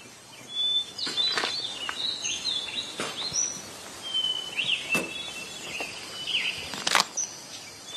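Small birds chirping repeatedly in short high calls. Scattered brief rustles and clicks of rope and cloth come as a rope is pulled off over a man's head, the sharpest about five and seven seconds in.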